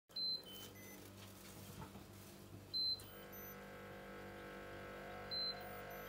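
Refrigerator door-open alarm beeping: three short, high beeps about two and a half seconds apart, over a low steady hum.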